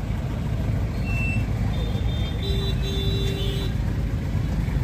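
Steady low engine and road rumble heard inside a car's cabin in slow, jammed city traffic. About halfway through another vehicle's horn beeps twice, a short beep and then a longer one.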